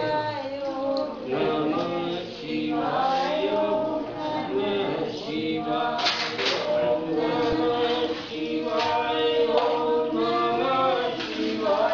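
Worshippers singing a devotional chant together, several voices holding long notes that rise and fall.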